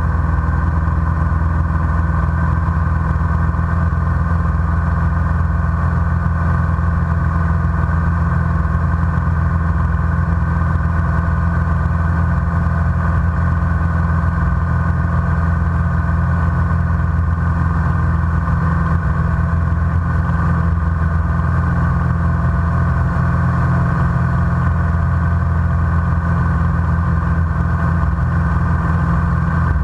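Light single-engine propeller airplane's engine and propeller droning steadily in flight, heard from inside the cockpit, with a strong low hum and no change in pitch.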